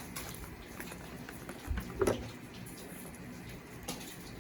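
Light handling noise: scattered small ticks and rustles, with two short soft knocks about two seconds in, as potted or bare-root plants and their packaging are handled.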